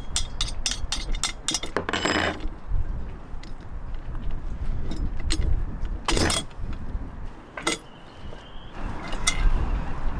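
Metal tools and hardware being handled, clicking and clinking: a quick run of sharp clicks in the first two seconds, a heavier clunk about six seconds in, and a few more clicks later, over a low rumble.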